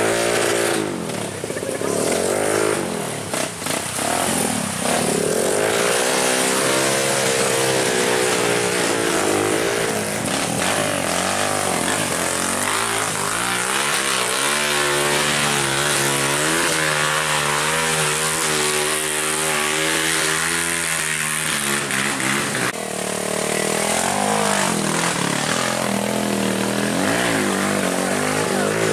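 Off-road trail motorcycle engines revving, the pitch rising and falling with the throttle, with a steadier stretch about halfway through.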